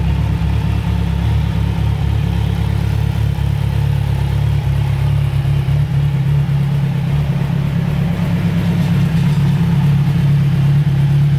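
Kawasaki Z1000's 1043 cc inline-four engine idling steadily.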